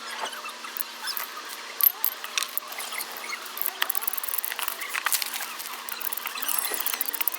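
Irregular small clicks, taps and scrapes of hand tools and metal parts being worked on a car's front suspension, while the sway bar links are being replaced.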